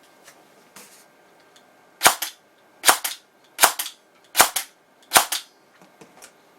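Airsoft electric gun firing five single semi-automatic shots about three-quarters of a second apart, each a sharp snap of the piston releasing with a brief mechanical tail from the gearbox cycling. A few faint clicks come before and after the shots.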